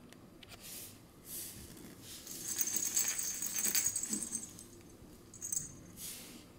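Plush toy jingling and rattling as a hand shakes it and drags it across a wooden floor, mostly in the middle of the stretch, with a short second jingle near the end and soft rustles around it.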